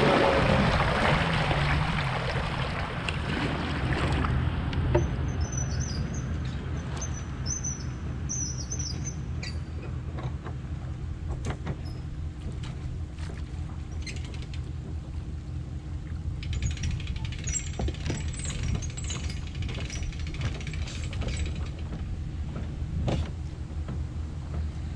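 Bass boat motor running steadily at low speed as the boat comes in toward the ramp, a low even rumble that is louder for the first few seconds.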